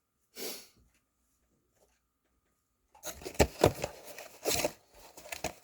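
One short breathy burst, like a sniff, then quiet, then from about three seconds in loud, dense crackling and tearing of packaging being pulled open by hand.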